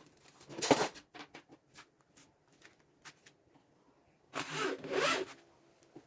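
Two rasping scrapes, a short one about half a second in and a longer one near the end, with light clicks and taps between.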